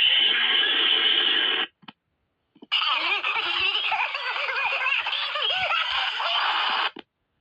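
Audio-effect variations of the Bullwinkle cartoon sneeze sound effect. One version cuts off under two seconds in; after about a second of silence another plays for about four seconds, its pitch bending up and down throughout.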